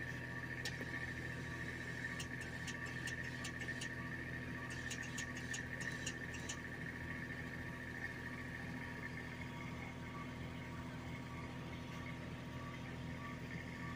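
Faint, steady engine hum running throughout, with a quick run of sharp high ticks from about two to six and a half seconds in.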